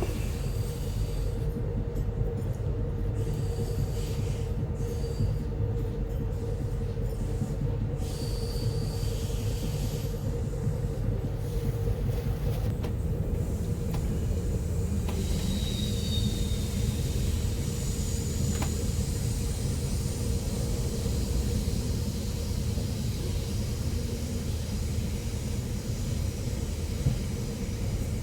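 Amtrak Empire Builder passenger train running on the rails with a steady rumble. Brief high wheel squeals come about nine and sixteen seconds in, and a louder rushing hiss sets in over the second half.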